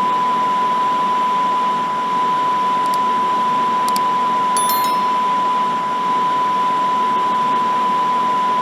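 A single steady high-pitched electronic beep tone held without a break over a loud hiss of static, cutting off suddenly at the end.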